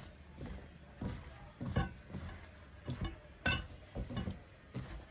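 Chicken pieces being dredged in flour in a bowl: a handful of soft, irregular knocks and taps against the bowl.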